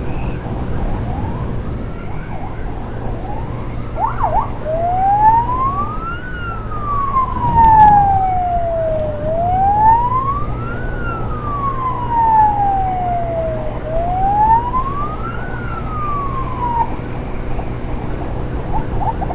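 Electronic emergency siren: a few quick yelps, then from about four seconds in a slow wail that rises and falls three times before stopping. Underneath is the steady hum of a moving motorcycle's engine and road noise.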